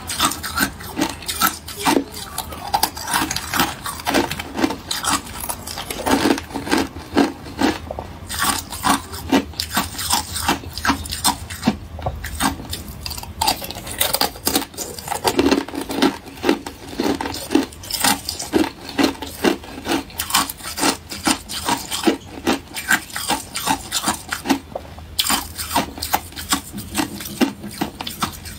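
Thin sheets of ice being bitten and chewed close to the microphone: a quick, continuous run of sharp crackling crunches, several a second.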